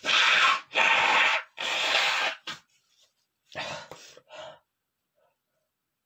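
A man sneezing three times in quick succession, each sneeze a loud burst under a second long, followed a second later by two quieter short sounds.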